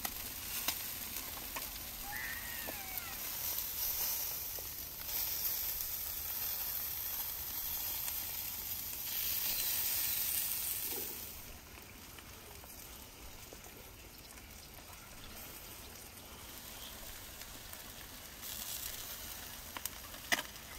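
Fat sizzling and spitting as whole chickens roast on spits over a fire, a steady hiss with an occasional pop. It is louder for the first half and drops off about eleven seconds in.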